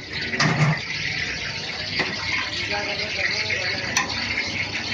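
Busy restaurant kitchen ambience: a steady hiss with indistinct voices in the background and a sharp metallic clank near the end.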